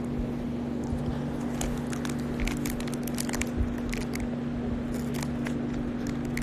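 Scattered small crackles and clicks close to a phone's microphone, over a steady low hum.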